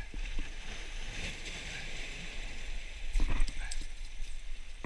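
Wind buffeting the microphone over the steady wash of surf on jetty rocks. A short cluster of knocks and rattles comes about three seconds in as the landing net holding a coho salmon is handled on the rocks.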